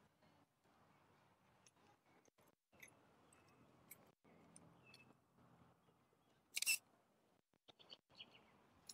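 Near silence: faint background hiss with a few small scattered clicks, and one short burst of noise about two-thirds of the way through.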